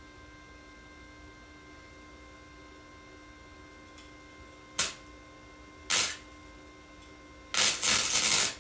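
Welding arc crackling in short bursts while tack welding metal: two brief zaps about a second apart, then a longer burst of about a second near the end. A steady electrical hum runs underneath.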